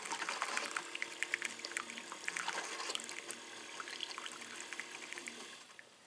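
Keurig K-Select coffee maker dispensing a thin stream of brewed coffee into a mug, a splashing trickle that tapers off and stops near the end as the brew cycle finishes. With the cupless filter pod there is little air screeching through at the end of the cycle.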